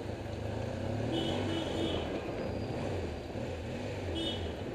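Honda Africa Twin XRV750's V-twin engine running at low speed amid city traffic, a steady low drone. Short high-pitched tones sound about a second in and again near the end.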